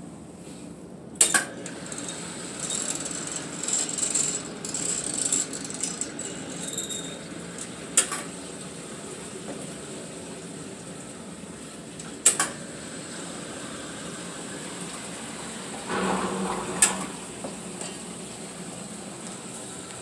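1950s Weil submersible sump pump being cycled: a sharp click about a second in as it switches on, then the pump running steadily with metallic clinking and rattling. Three more sharp clicks come later, and a short gurgling burst comes near the end.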